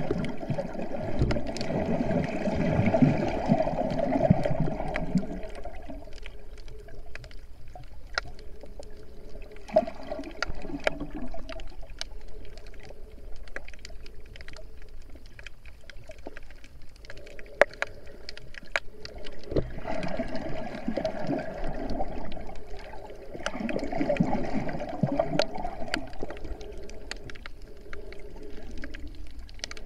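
Muffled underwater water noise from an action camera held below the surface. It swells louder several times, around the start, near 10 s and twice past 20 s. Sharp little clicks are scattered throughout.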